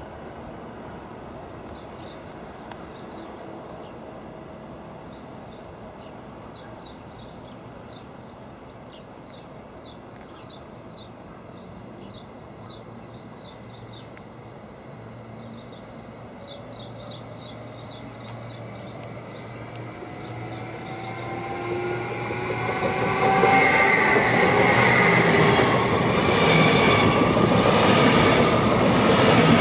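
A train approaches, building up from about twenty seconds in, and runs past loud and close with rail noise and squealing wheels.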